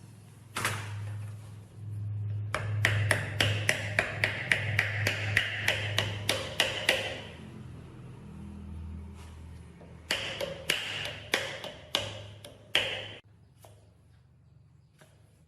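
Hammer tapping on metal motor parts in two runs of quick, ringing strikes, about three a second, over a low steady hum.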